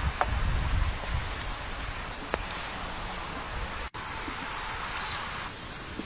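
Whole fish grilling on a bamboo rack over glowing charcoal embers: a steady crackling hiss with a couple of sharp pops, and a low rumble in the first second.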